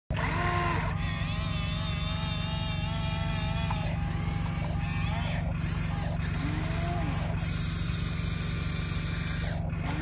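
Radio-controlled excavator working: a steady low engine-like hum, with higher wavering tones that rise and fall over it at times.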